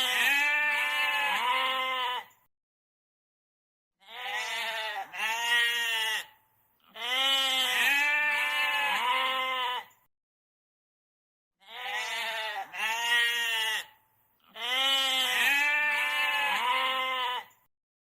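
Goat bleating: five long, quavering bleats, each lasting two to three seconds, with short silent gaps between them.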